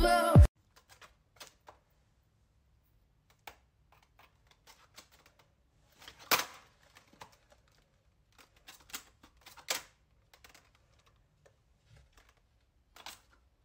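Paper dragon puppet being handled: scattered faint papery clicks and taps, one sharper near the middle and a small cluster a few seconds later. A snatch of music cuts off in the first half second.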